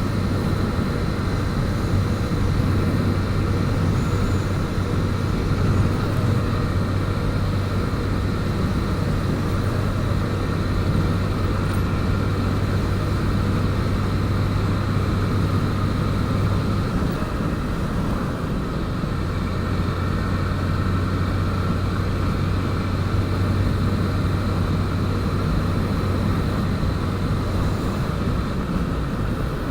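Motorcycle engine running steadily at cruise with road and wind noise while riding. Its low hum drops out briefly about halfway through, then picks up again.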